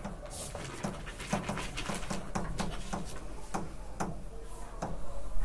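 Pen tapping and scratching on a writing screen as words are handwritten: a string of short, irregular ticks and scrapes.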